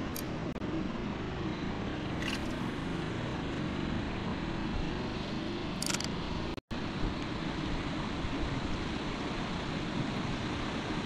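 Steady wind noise rumbling on the microphone, with a few faint clicks and an instant where the sound cuts out about two-thirds of the way through.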